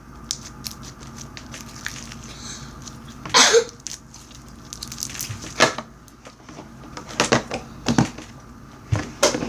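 Slime being handled and played with: scattered small sticky clicks and pops, with a few louder squelches every second or two.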